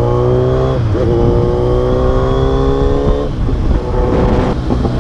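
Kawasaki Z1000 inline-four with a full aftermarket exhaust system, accelerating while ridden: the engine note climbs, drops at an upshift about a second in, climbs again, then falls back just after three seconds as the throttle eases.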